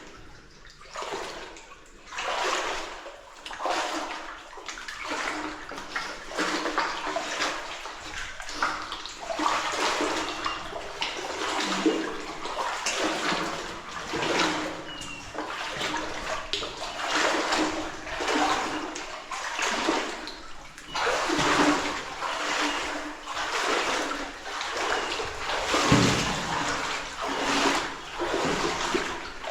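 Legs wading through deep water in a flooded mine tunnel, splashing and sloshing in a steady rhythm of about one stride a second.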